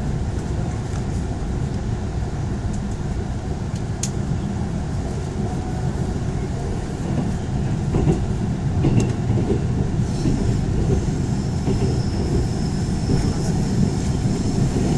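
Mugunghwa passenger train running, heard from inside the carriage: a steady low rumble of wheels on the rails. A faint high whine comes in about ten seconds in and holds to the end.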